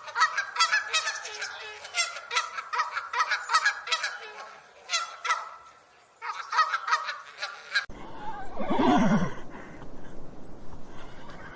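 A flock of farm fowl calling in rapid, repeated honking cries for about eight seconds. Then the sound changes abruptly to a single animal call that falls in pitch, over a rough background noise.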